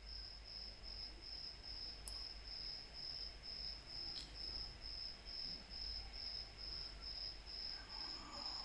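Faint, high-pitched insect chirping, repeated evenly about two and a half times a second, over a low steady hum.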